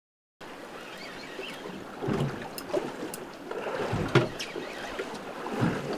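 Small boat on choppy open sea: steady wind and water noise, with a few dull knocks of water against the hull about two seconds in, about four seconds in, and near the end, and some faint clicks.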